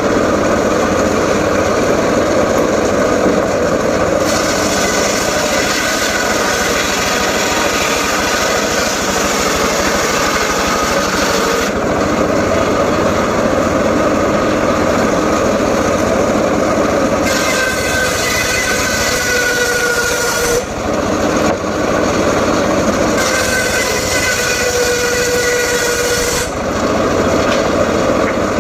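Home-built circular saw running steadily and cutting through mahogany wood. The blade bites into the wood in three long stretches, each bringing a harsher, higher-pitched whine over the steady running sound.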